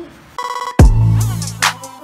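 Background music: a brief stuttering synth riff, then a heavy bass drum hit with a long, deep bass note starting about three-quarters of a second in.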